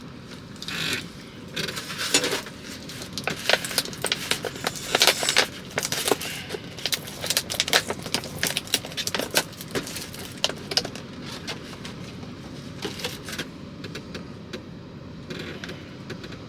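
Clatter of small hard objects being handled: a quick run of clicks and knocks, busiest in the first two-thirds, over a steady background hiss.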